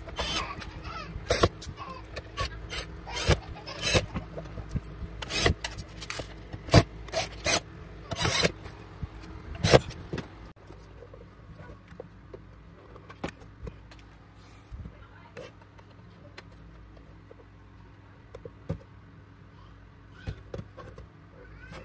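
Cordless drill-driver running in short bursts to drive screws into a plastic speaker housing, among sharp clicks and knocks from handling the parts. About ten seconds in it goes much quieter, leaving only occasional small clicks.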